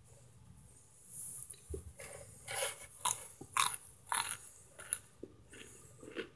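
Chunks of microwaved Argo cornstarch crunching and crumbling: a string of irregular, crisp crunches starting about a second in.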